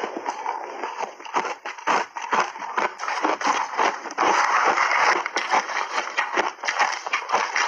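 Crunching and chewing of crunchy refrozen mixed-berry shaved ice in big bites: a dense, irregular run of sharp cracks and crackles.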